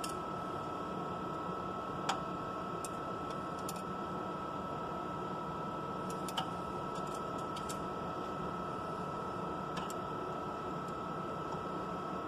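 A few small, sharp clicks of a fine flat-headed screwdriver and hands on the plastic screws and metal stage insert of a Nikon Ti-E microscope as the screws are undone, scattered a second or more apart. Under them runs a steady electrical hum with a thin high whine.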